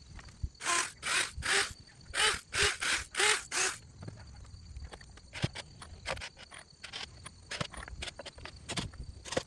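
An animal calling outdoors: seven harsh calls in two quick runs, three then four, in the first four seconds, followed by a few faint clicks.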